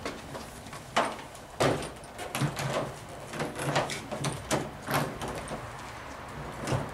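A black plastic outdoor TV enclosure being handled and lowered over a flat-screen TV, its mounting studs fed through the holes in the back of the shell: a series of irregular hollow knocks and clunks, the loudest about a second in.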